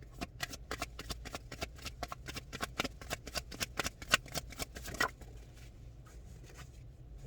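Tarot deck being shuffled by hand: a rapid run of papery card clicks that stops about five seconds in.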